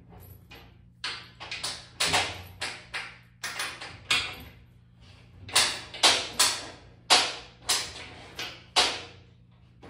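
9/16-inch socket ratchet wrench tightening the bolts on a steel bucket, a run of short ratcheting strokes about two a second, with a brief pause partway through.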